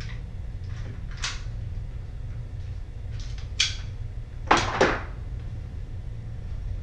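Objects being handled on a table: a handful of short clacks and rustles, the loudest pair about four and a half seconds in, over a steady low hum.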